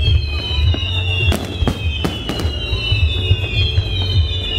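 Fireworks display: shells bursting with sharp bangs several times over a steady low rumble, with high whistling tones that slide down in pitch again and again.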